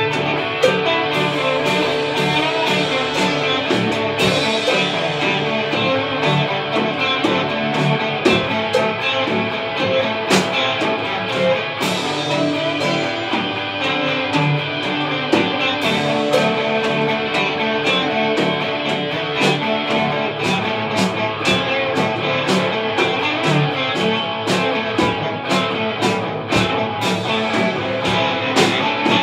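Instrumental rock played live on two electric guitars, a Stratocaster-style and a Les Paul-style, over a Gretsch drum kit keeping a steady beat.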